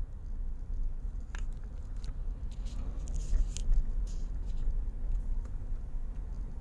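Inside a moving car's cabin: a steady low rumble of engine and road, with a few light clicks and ticks scattered through it.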